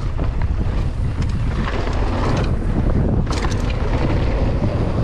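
Mountain bike rolling fast down a dirt trail: wind buffets the microphone, over the rumble of the tyres, with short clicks and clatters from the bike over rough ground, a cluster of them a little past the middle.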